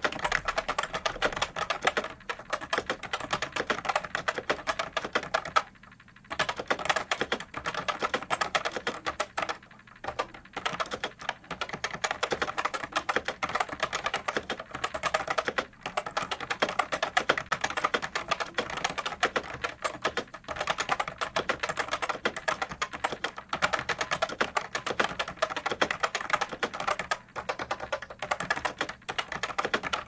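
Fast touch-typing on a 1991 Chicony 5182 keyboard with clicky MX-compatible Futaba switches in a plate mount and thin ABS keycaps: a dense, rapid stream of key clicks, which on these switches sound mostly as the keys come back up. The typing breaks off briefly about six seconds in and again about ten seconds in.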